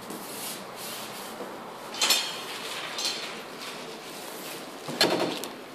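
Cardboard TV carton and its packing being handled: rubbing and rustling, with two short, louder scrapes about two seconds in and near the end.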